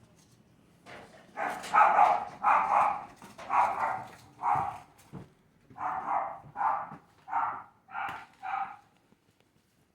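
A dog barking in a series of about ten short barks, some paired, starting about a second and a half in and stopping near the end.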